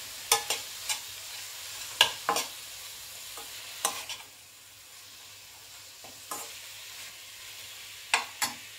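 Steel spoon stirring boiled radish and radish greens in a kadhai over a steady frying sizzle, with about ten sharp clacks of the spoon against the pan. The sizzle eases a little about four seconds in.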